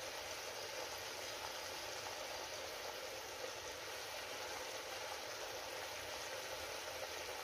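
Rabbit meat sizzling steadily as it fries in a kazan cauldron, a constant even hiss.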